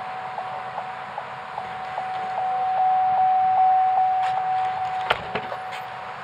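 Chevrolet pickup's door-open warning chime, a single-pitched ding repeating about two and a half times a second. A door thumps shut about five seconds in, and the chime goes on more faintly before stopping.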